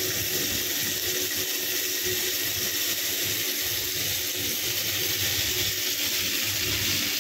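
Chicken sizzling on a hot grill pan: a steady hiss.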